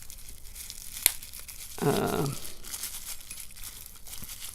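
Packaging wrapper crinkling and tearing by hand as a lock is unwrapped, with a sharp click about a second in. A short vocal hum falls in pitch around two seconds in.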